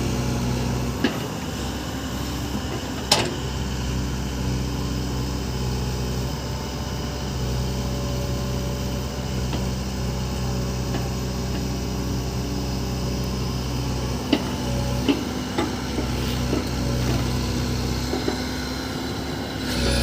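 JCB backhoe loader's diesel engine running steadily, with a few sharp knocks from the working machine: one about three seconds in and several in quick succession near the last third.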